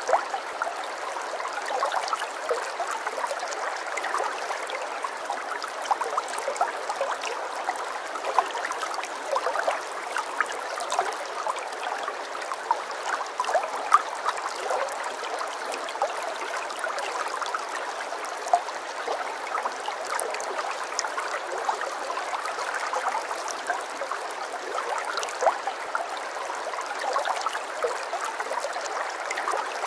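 Running water trickling and gurgling steadily, with many small splashes and plinks scattered through it and no deep rumble underneath.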